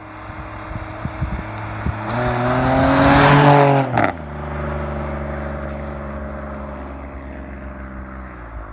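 Straight-piped 2005 Pontiac G6 driving past: the exhaust grows louder as it approaches, peaks with a falling pitch about three to four seconds in with one sharp crack, then fades as the car pulls away.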